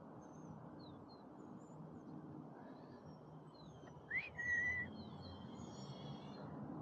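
Scattered bird chirps, the loudest a whistle about four seconds in that rises and then holds for half a second. Under them is a steady low rumble of wind and tyre noise from riding the electric unicycle.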